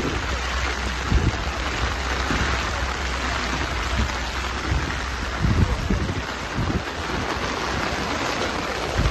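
Heavy rain falling steadily as a hiss, with low rumbles and thumps of wind gusting on the microphone.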